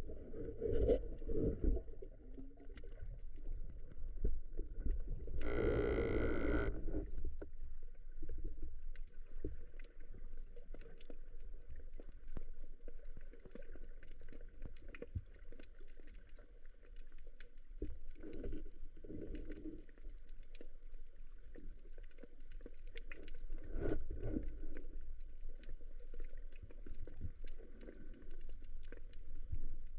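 Muffled underwater ambience picked up through a camera housing: a steady low rumble of moving water with faint scattered clicks. A brief pitched sound of about a second comes about six seconds in.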